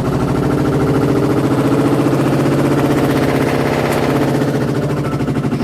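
LG semi-automatic washing machine's spin tub running with a loud, rapid, even rattle over a steady motor hum. The noise comes from a garment caught beneath the spin drum.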